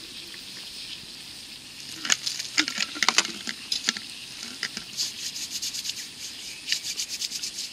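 Hands being rinsed with water poured from a bottle: irregular pattering and splashing of water, starting about two seconds in.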